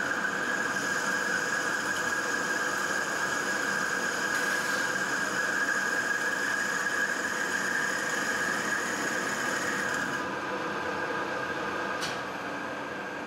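Colchester Master 2500 centre lathe running while a boring bar cuts inside a spinning cast aluminium pulley. The cut gives a steady high-pitched squeal that stops about ten seconds in, leaving the quieter running of the lathe. There is a single sharp tick near the end.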